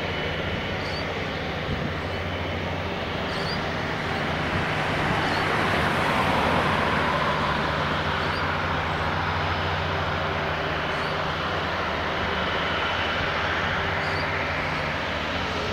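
Jet airliner engines running with a steady rumble and hum, swelling to a broad peak about six seconds in and then easing back.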